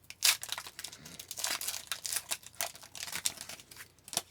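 Wrapper of an Upper Deck Artifacts hockey card pack crinkling in the hands, with irregular crackles and a sharper one shortly after the start, as it is handled and torn open.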